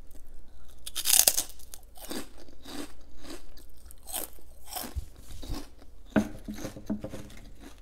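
Fried prawn crackers being bitten and chewed close to the microphone: a loud crisp crunch about a second in, then a run of shorter crunches as they are chewed.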